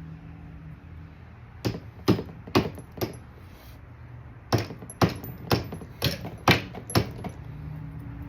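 Sharp metal-on-metal strikes from work on a scooter engine's top end: four, a short pause, then six more, about two a second.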